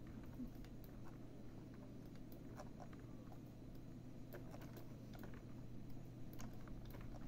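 Scattered, irregular clicking of a computer mouse and keyboard over a steady low hum.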